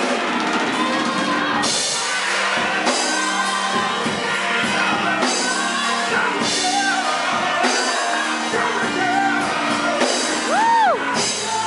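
Live gospel song: a man sings into a handheld microphone through the PA with band accompaniment. Near the end a few high swooping tones rise and fall.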